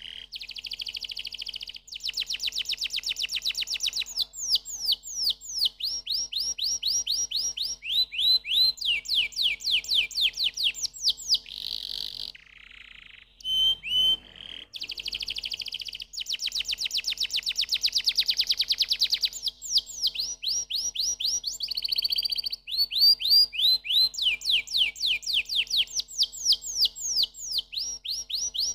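Domestic canary singing: long runs of fast trills, each a rapid string of repeated notes, many of them quick downward sweeps in pitch, with a short break about halfway through.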